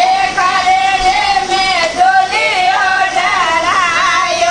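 A woman singing a Marwari jamai geet, a folk wedding song teasing the son-in-law, in a high voice that holds long notes and slides between them.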